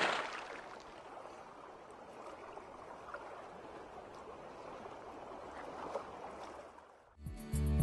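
Underwater bubbling and gurgling water sound effect: a loud rush at the start dies away into a steady watery hiss that fades out. Music with a beat comes in near the end.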